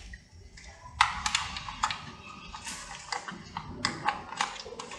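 Light plastic clicks and taps as a DC barrel plug is worked into a ZTE modem's power jack and its cable is handled: scattered small knocks from about a second in, a few bunched together.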